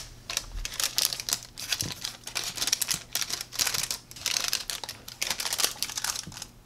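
Parchment paper crinkling and rustling in irregular bursts under hands pressing a buttery crumble mixture into a lined baking dish; loud.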